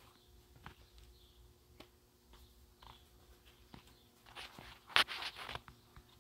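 Footsteps on a garden path, scattered light steps with a louder scuffing rustle about four to five seconds in. A faint steady hum runs underneath.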